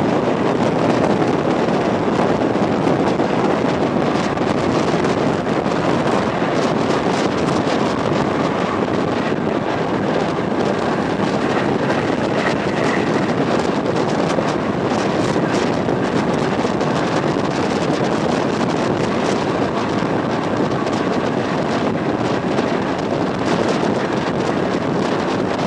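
ER2T electric multiple unit running at speed: a steady, loud rush of running noise from the moving train.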